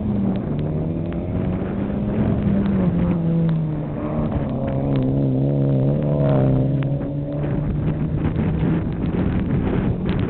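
Mitsubishi Galant VR4 rally car's engine working hard on a dirt circuit. Its pitch drops a couple of times in the first few seconds and swings up and down with the throttle about halfway through as the car slides through a corner, then holds steadier.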